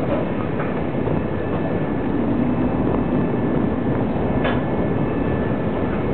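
Steady low rumble of a boat's engine with wind and water noise; a faint steady whine joins about two-thirds of the way in.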